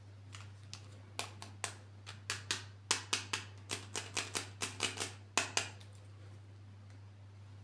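Toy packaging being handled and opened: a quick, irregular run of sharp clicks and crackles lasting about five seconds, over a steady low hum.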